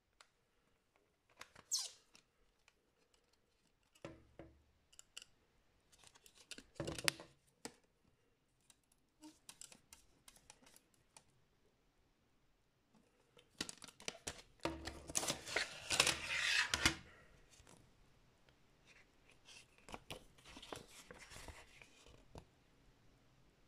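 Hands handling a plastic CD jewel case: scattered clicks and taps as it is turned over and opened. About two thirds through comes a dense stretch of plastic clatter and paper rustling as the booklet is taken out, then softer rustling of its pages near the end.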